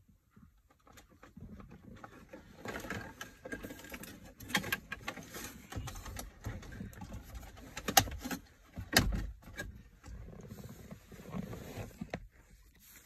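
A plastic screen frame being pushed and fitted into a car's dashboard: rustling and rubbing with scattered clicks and knocks. Two sharp knocks stand out, about eight and nine seconds in.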